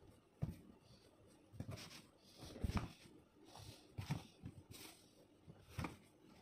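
Bare hands kneading and patting sticky ground-shrimp paste with added flour: faint, irregular soft pats and rubs, about five of them, the loudest near the middle.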